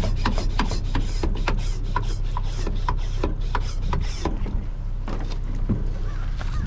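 Kayak hulls being scrubbed and handled during a wash-down: irregular rubbing, scraping and clicking over a steady low rumble.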